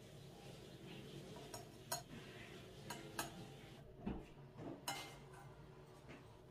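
Metal serving spoon clinking and scraping against an enamelled stew pot and a ceramic bowl as meatballs in sauce are dished out: about five sharp clinks between two and five seconds in, with a soft thud near four seconds.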